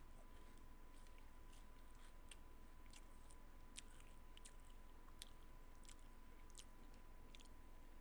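Near silence: faint, irregular little clicks over a low hum and a thin steady tone.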